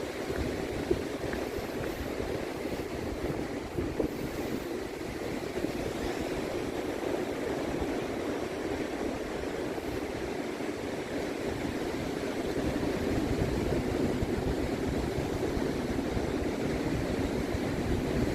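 Wind buffeting the microphone with a steady rush of sea surf beneath as the tide comes in.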